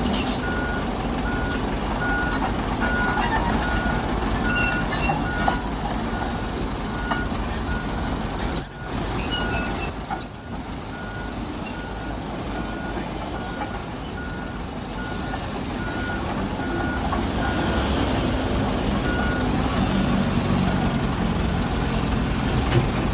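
Heavy machine's motion alarm beeping steadily, about three beeps every two seconds, over a diesel engine running, with a couple of sharp metal knocks a little past the middle.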